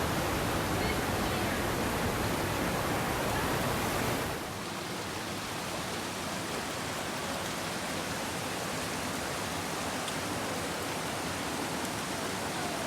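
Steady rush of flowing stream water. About four seconds in, the deep part of the noise drops away and the rush goes on a little quieter.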